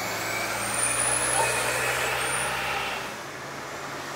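A city bus driving past in street traffic, its engine running under a thin high whine that rises. About three seconds in, the sound drops to a quieter, steady city background.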